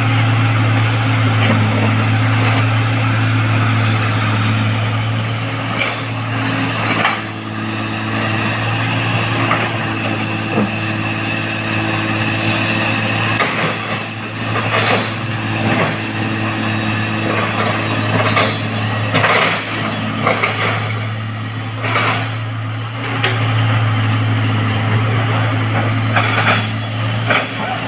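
Heavy diesel earthmoving machinery running with a steady low drone that eases off about a quarter of the way in and picks up again near the end. Scattered knocks and clanks come through the middle.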